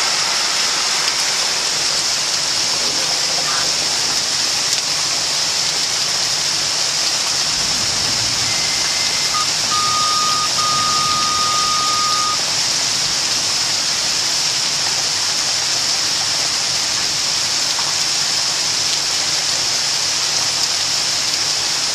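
Heavy thunderstorm rain pouring down steadily in an even, unbroken hiss. About halfway through, a faint high steady tone sounds for about three seconds over the rain.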